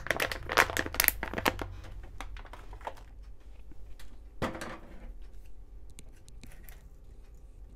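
Crinkling and crackling of a plastic salt bag being handled for a pinch of salt: dense crackles for about two seconds, then scattered lighter clicks.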